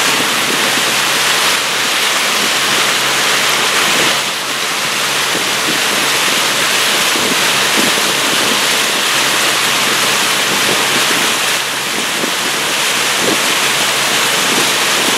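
Motorboat under way: a steady rush of wind and water with a low, even motor hum beneath it.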